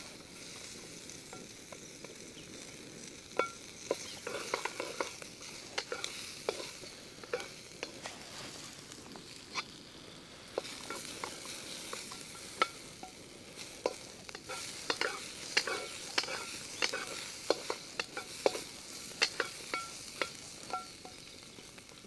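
Chopped onions sizzling in hot oil in a wok, with a wooden spatula knocking and scraping against the pan at irregular moments as they are stirred.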